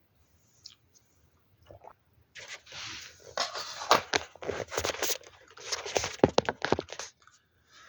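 Irregular crunching and scraping with sharp clicks, like objects being handled. It starts about two and a half seconds in and stops about two seconds before the end.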